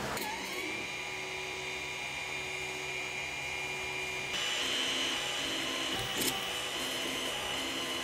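Ender 3 3D printer running a print, its stepper motors giving a steady high whine that steps up in pitch about four seconds in, with a couple of short clicks near the six-second mark.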